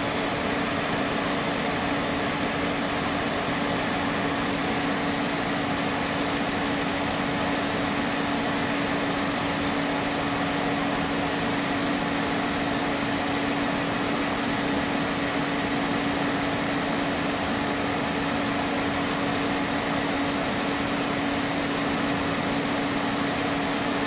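2003 Hyundai Elantra 2.0-litre four-cylinder engine idling steadily with a misfire on cylinder 3, caused by a leaking intake manifold gasket, with the electric radiator cooling fan running.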